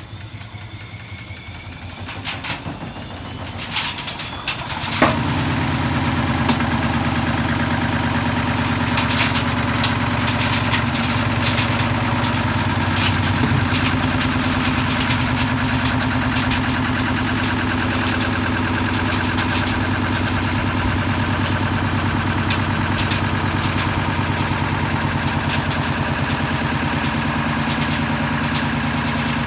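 A few clicks and faint rising whines, then about five seconds in a machine starts suddenly and runs with a steady, unchanging low hum.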